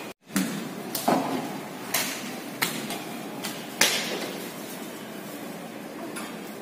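About five short, sharp knocks at irregular intervals, each ringing briefly in a bare, echoing room, over a steady background hiss.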